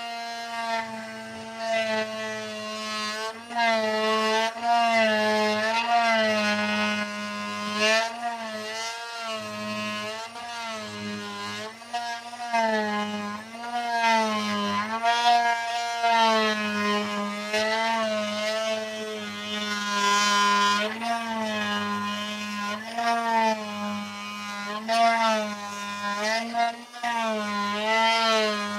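Oscillating multi-tool running and cutting into wood. Its steady buzz dips in pitch every second or two as the blade is pressed into the cut and eased off.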